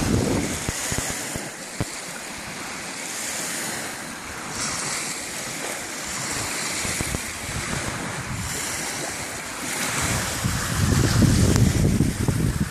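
Small waves washing onto a sandy beach, a hiss that swells and falls every couple of seconds. From about ten seconds in, wind gusts on the microphone add a loud, blustery rumble.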